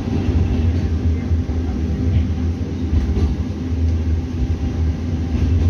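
Istanbul tram in motion, heard from inside the car: a steady low rumble.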